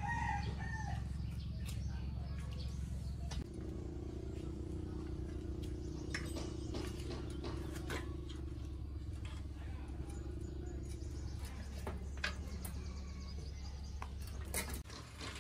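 Scattered light metallic clicks and taps from hands working on an old bicycle's rear hub, derailleur and chain, over a steady low hum. A few bird chirps sound near the start.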